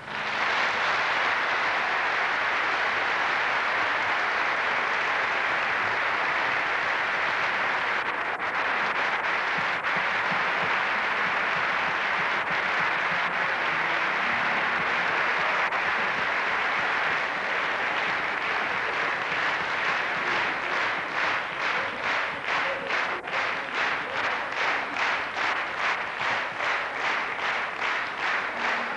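Large concert-hall audience applauding, a dense wash of clapping that about twenty seconds in turns into rhythmic clapping in unison, about two claps a second.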